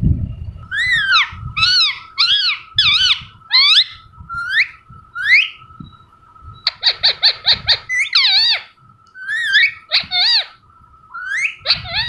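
Pet parrot calling: a string of short squawks that rise and fall in pitch, with a quick chattering run of about ten notes around the middle, then more squawks.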